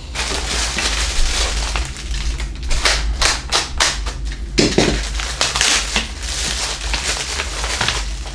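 Plastic packaging bag crinkling and rustling as parts are unwrapped from it, with a quick run of sharp crackles about halfway through.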